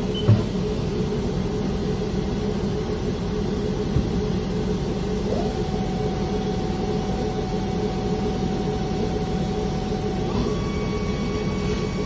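Haas ST-10Y CNC lathe running with its spindle turning: a steady mechanical hum with a thin whine that steps up in pitch twice, about halfway through and near the end. There is a short knock just after the start.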